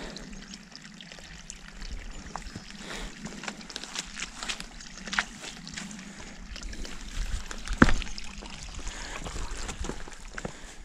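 Hiking boots stepping across wet logs lying in bog water: scattered knocks of boots on wood with trickling, sloshing water, and one sharper knock about eight seconds in.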